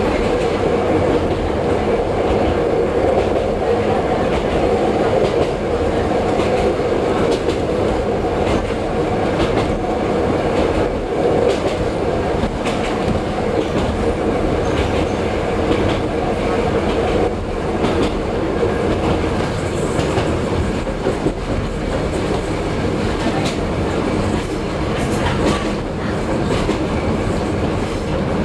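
Kosaka Railway diesel railcar running along the line, heard from the driver's cab: a steady engine and running noise, with the wheels clicking over rail joints now and then.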